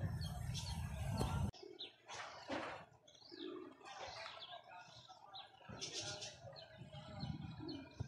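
Flock of domestic pigeons giving soft low coos and a few wing flutters, among short high chirps of small birds. A low rumble in the first second and a half cuts off suddenly.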